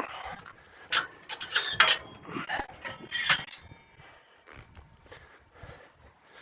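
Metal hardware being handled: a run of sharp clanks and clinks with brief metallic ringing, from a trailer pin and winch fittings being worked by hand. It is loudest about two seconds in and quieter near the end.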